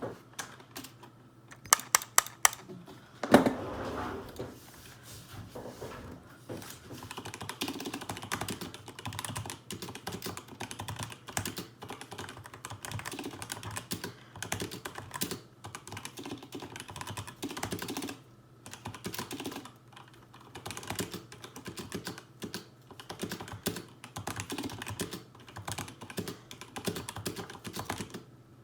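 Typing on a Razer BlackWidow V3 mechanical keyboard with Razer Yellow linear switches. A few sharp separate key strikes and a heavier thump come in the first few seconds, then steady, continuous typing.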